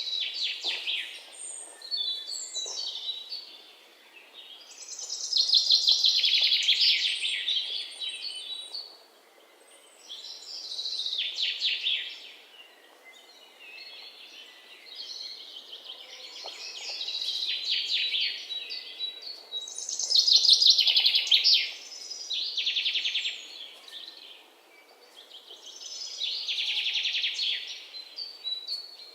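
Songbirds singing in repeated high-pitched phrases of rapid trills and chirps, each lasting a few seconds, over a faint outdoor hiss.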